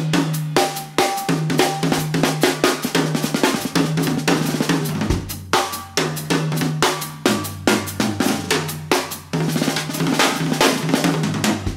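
Drum kit played in a fast, busy pattern of snare, tom, kick and cymbal strokes, with a low steady note underneath.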